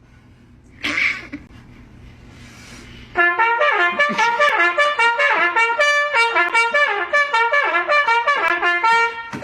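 Trumpet playing a quick melody of short notes stepping up and down, starting about three seconds in. Before it there is a faint low hum and a short hiss about a second in.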